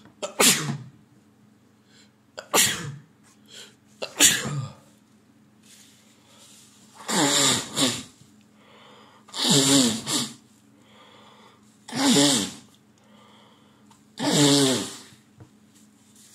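A man sneezing repeatedly in a fit brought on by a head cold: about seven sneezes, three short sharp ones in the first five seconds, then four longer, voiced sneezes about two and a half seconds apart, with quick breaths drawn in between.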